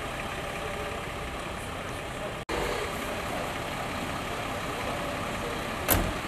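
Fire engine's diesel engine idling steadily, with one sharp thump near the end.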